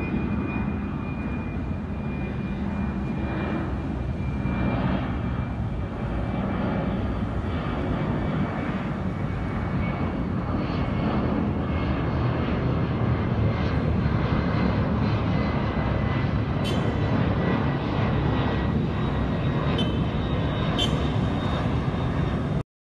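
Twin-engine jet airliner flying overhead: a steady jet engine rumble, growing slightly louder through the middle, with a faint high whine that fades out about ten seconds in. A few sharp clicks come near the end before the sound cuts off suddenly.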